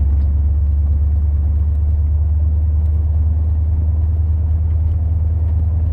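Car driving, a steady, loud low drone of engine and road rumble.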